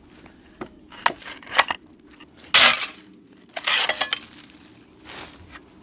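Old ceramic floor tiles being tossed onto a discard pile: a few light clinks, then two clattering crashes about two and a half and four seconds in.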